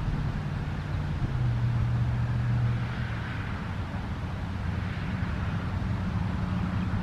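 Steady low hum of a motor vehicle's engine running, over outdoor background noise.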